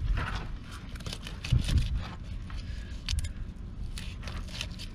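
Fillet knife cutting along a red drum's rib cage and through its scales on a plastic cutting board, in short irregular scratches and scrapes, with a dull bump about one and a half seconds in.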